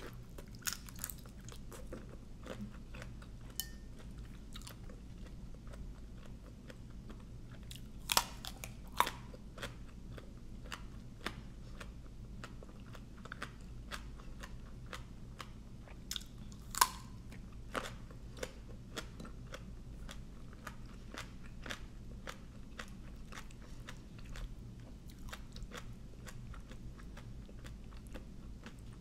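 A person chewing and crunching mouthfuls of papaya salad and raw vegetables close to the microphone: many short, crisp crunches at irregular intervals, a few louder ones around 8, 9 and 17 seconds in, over a faint low hum.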